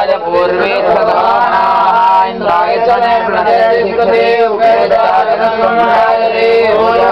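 Several men chanting Sanskrit mantras together, a continuous sung recitation with overlapping voices.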